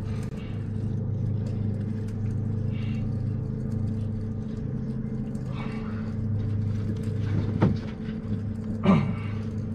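Small boat's motor idling with a steady low hum. Near the end there is a brief voice sound.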